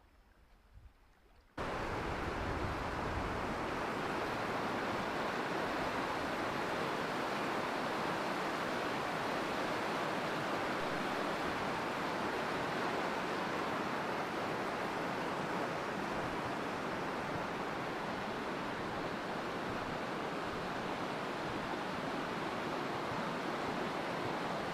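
Stream water rushing over smooth granite ledges in shallow cascades: a steady, loud rush that cuts in abruptly about a second and a half in, after a few moments of faint quiet.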